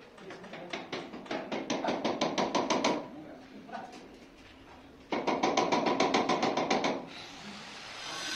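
Two runs of rapid hammer strikes against the concrete at the top of a doorway, several blows a second. The first run builds up and stops about three seconds in; the second starts abruptly about two seconds later and lasts about two seconds.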